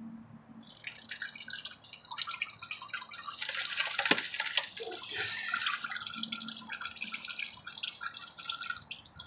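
Used engine oil draining from an oil pan's drain hole into a catch pan, an irregular splashing and dripping that starts about a second in and is loudest near the middle.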